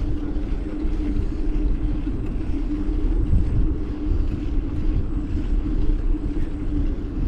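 Wind rumbling on the microphone of a moving mountain bike rider, with a steady low hum under it.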